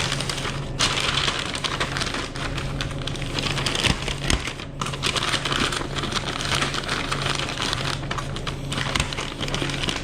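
Food sizzling and crackling as it fries on a restaurant line, a dense crackle that comes up about a second in, with a steady low hum underneath.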